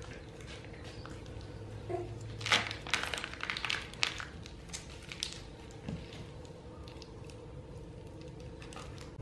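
Plastic margarine pouch crinkling as it is squeezed out onto flour, a cluster of crisp rustles a few seconds in, over a faint steady hum.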